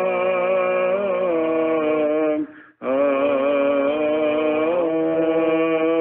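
Male voices singing Byzantine chant: a long, drawn-out melismatic phrase on held, gently wavering notes, with a lower note sustained beneath the melody. The singing breaks off briefly for a breath about two and a half seconds in, then resumes.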